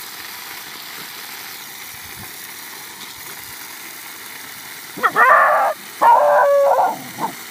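Puppy barking: two loud, drawn-out barks about five seconds in, followed by two short yips near the end.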